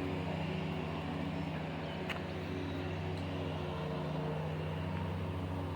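A vehicle engine running steadily, with a short click about two seconds in.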